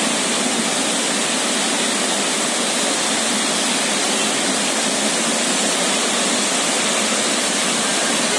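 Swollen river in a monsoon flash flood, the fast floodwater rushing in a loud, steady roar.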